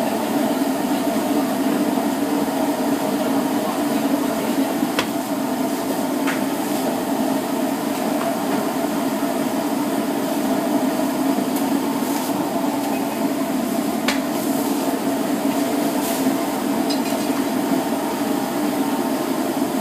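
Steady mechanical drone of bakery machinery in a tiled room, with a few light knocks from bread being worked in the tandoor with an iron rod.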